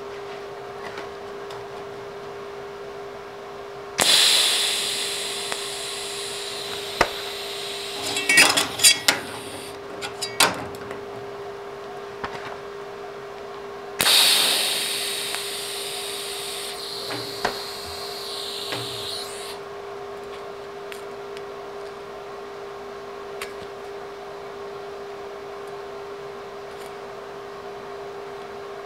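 A TIG welding arc is struck twice on a thin sheet-metal tee joint, about 4 and 14 seconds in, each time a sudden crackling hiss that fades over a few seconds as the joint is tacked. Sharp clicks and metal taps come between the two arcs, over a steady hum.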